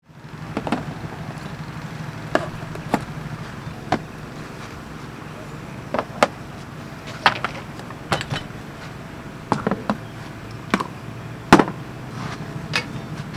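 Camping gear set down piece by piece on a camp table: a string of sharp, irregular clicks and knocks of metal and hard plastic items, over a steady low background hum.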